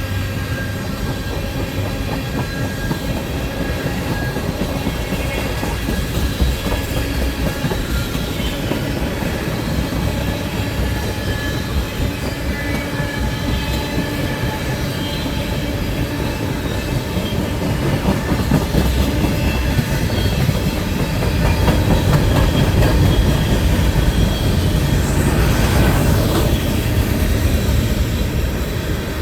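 Cars of a long CN freight train rolling past, steel wheels clacking rhythmically over the rail joints, with thin high squealing tones from the wheels on the rails.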